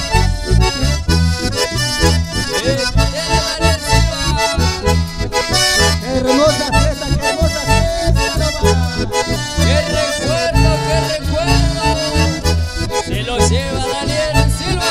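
Live band playing an instrumental passage: button accordion and bandoneón carry the melody over acoustic guitar and electric bass, with a steady beat.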